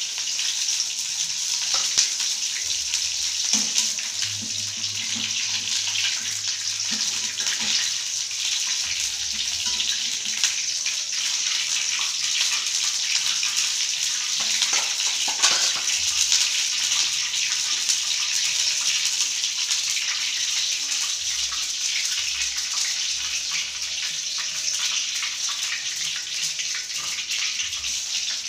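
Hot oil sizzling steadily in a wok as food deep-fries, with a few sharp clicks of a metal strainer and spatula against the pan.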